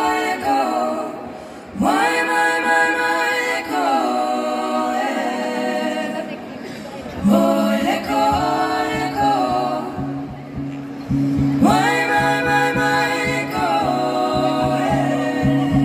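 Live pop music: women's voices singing together in harmony, with a low sustained accompaniment coming in about halfway through.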